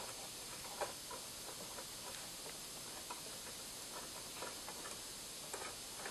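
Faint, scattered clicks and taps of a 15-pin D-sub cable connector and a small screwdriver being handled against the plastic back of a TV, over a steady hiss.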